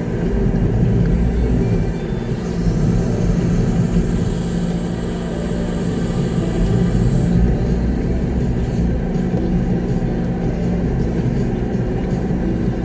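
Concrete mixer truck's diesel engine running steadily, heard from inside the cab.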